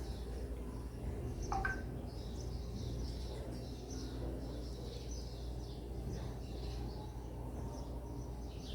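Small birds chirping in quick, repeated calls, over a steady low hum.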